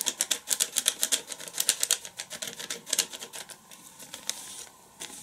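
Paper-foil sachet of ground black pepper crinkling and rattling as it is shaken over a plastic blender jar: a rapid run of sharp little clicks that thins out after about three and a half seconds.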